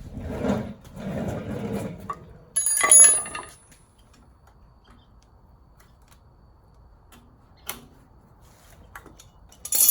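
Metal hand tools being handled, as when grabbing pliers: about two seconds of rummaging, then a loud metal clank that rings brightly and dies away within half a second, followed by a few light clicks.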